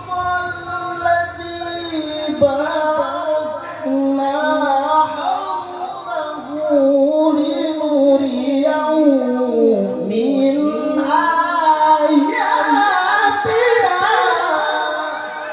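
A single high voice singing long, ornamented melodic lines with slow bends in pitch. The line sinks to a low point about ten seconds in, then climbs again and grows louder.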